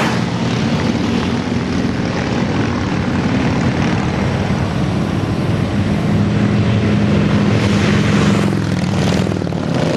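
A group of cruiser and touring motorcycles passing on a highway, their engines making a continuous drone that swells as several bikes approach and pass close about eight seconds in.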